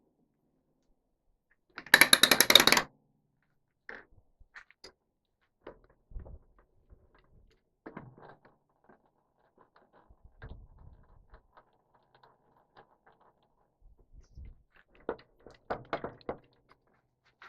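Scattered clicks and knocks of something being handled, with a loud rapid rattle lasting about a second near the start and a cluster of louder knocks near the end; no motor is running.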